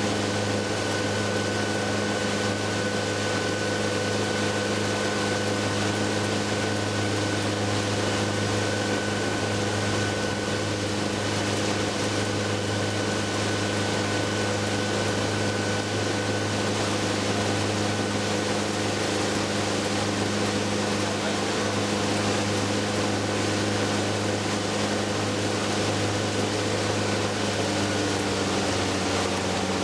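Tour boat's motor running steadily under way, a constant drone over the rush of air and water; its pitch shifts slightly near the end.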